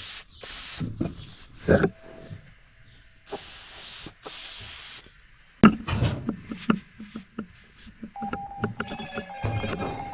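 Short bursts of spray hissing as dirt is blasted off a rotary cutter's gearbox around its oil ports, one brief and one longer burst in the first half. Then a sharp knock and scattered clicks, with a steady high tone joining near the end.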